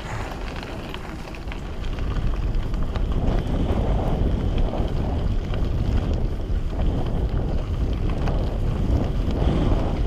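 Wind buffeting the microphone while riding a bicycle, a gusty low rumble that gets louder about two seconds in.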